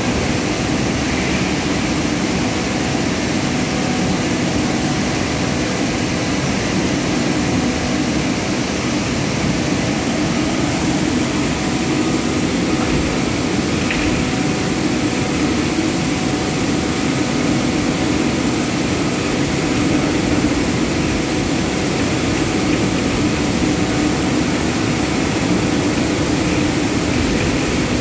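Palm oil mill machinery running: a loud, steady industrial din with a few faint steady hums through it.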